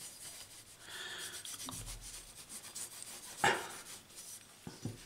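Cloth rubbing linseed oil onto the steel parts of an old adjustable wrench, a soft, uneven rubbing, with one light knock about three and a half seconds in.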